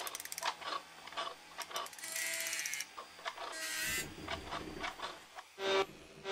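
Mechanical sound effects of an animated machine: a run of clicks and ratcheting, two short whirs about two and three and a half seconds in, and a low rumble, then a loud pitched tone starts near the end.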